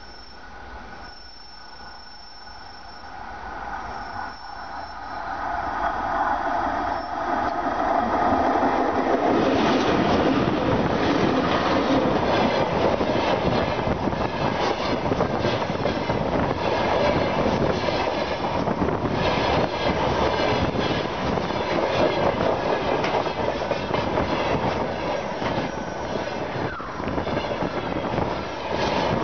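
A train hauled by a VL80 electric locomotive approaches on the track, growing steadily louder over the first several seconds. It then rolls directly overhead, with a loud steady rumble of steel wheels on rail and rapid clicks and clacks as the wheelsets pass over the rails.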